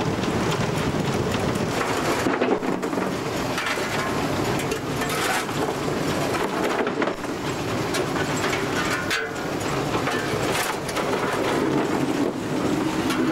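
Cab noise of a narrow-gauge steam locomotive under way: the engine and wheels on the track run as a steady, loud, dense clatter.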